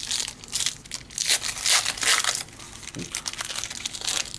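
Crinkling and crumpling of a trading-card pack wrapper as it is handled, in a run of short crackly strokes that are loudest in the first half and thin out toward the end.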